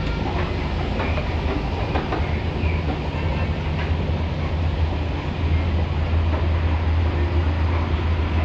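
Escalator running: a steady low mechanical hum with a few light clicks from the moving steps, the hum growing stronger about halfway through.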